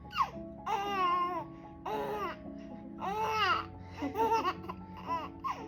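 A baby's high-pitched babbling and laughter in a string of short calls that rise and fall in pitch, with music playing underneath.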